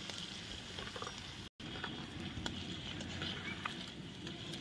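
Sago pearls frying in hot oil in an aluminium kadai: a steady sizzle with scattered small crackles, as a perforated metal ladle moves them about. The sound drops out for a moment about a second and a half in.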